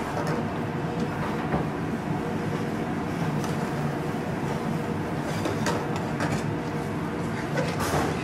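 Steady rumbling hum of a commercial kitchen, with a metal spoon now and then clinking and scraping in an aluminium pan as pasta is stirred over a gas flame.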